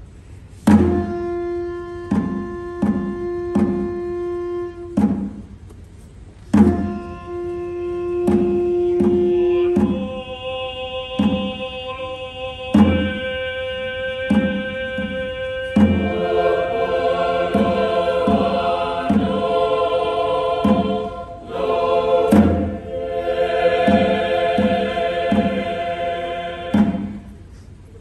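Choir singing long held, chant-like notes over a repeating drum pattern. The voices grow fuller and richer about halfway through.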